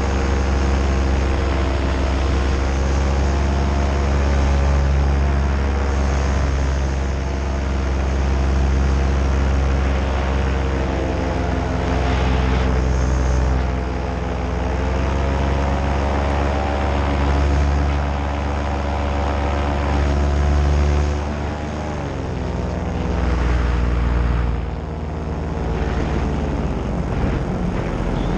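Nitro 200 paramotor engine and propeller running steadily in flight. The pitch shifts slightly with the throttle and dips briefly about three quarters of the way through.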